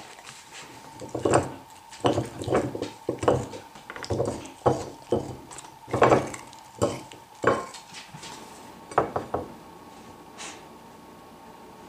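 A beagle crunching raw baby carrots, with irregular loud crunches about twice a second and its teeth and the carrots knocking against a china plate. The chewing stops about nine and a half seconds in.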